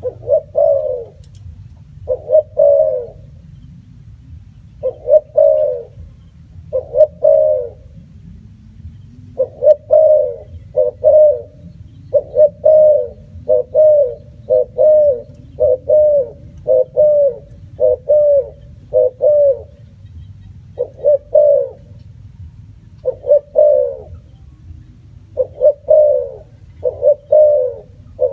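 Spotted dove cooing: short, low, arched coo notes repeated in phrases of two or three, again and again, over a steady low rumble.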